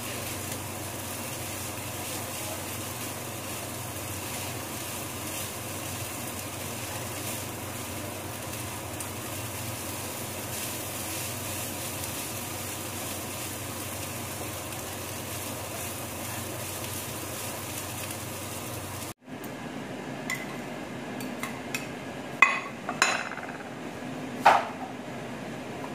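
Rice sizzling in a hot frying pan as it is stirred and turned with a spatula, a steady hiss. After a cut, a knife slices an egg omelette on a plastic cutting board with several sharp knocks, the loudest near the end.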